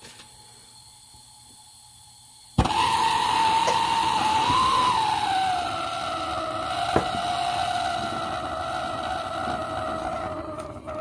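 Propane torch lit about two and a half seconds in: a sudden pop, then a steady loud hiss of the burning flame with a whistling tone that dips slightly in pitch.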